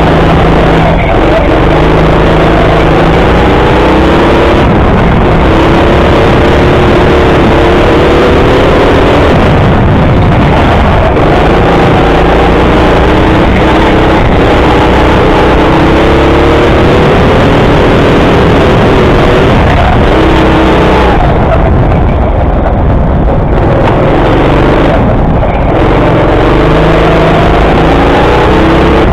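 Indoor go-kart's motor heard from on board, its pitch climbing and dropping again and again as the kart accelerates out of corners and slows into the next, over a loud, steady rush of noise.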